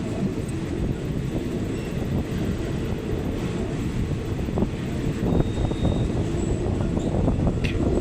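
A second-class fan-cooled passenger coach running along the line: a steady low rumble of wheels on rail with rushing air, and a few short knocks from the track around the middle and near the end.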